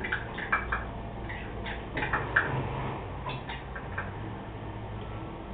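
Two cats eating from small dishes: irregular clicking and ticking of chewing and of mouths working at the dishes, bunched in short runs, over a low steady hum.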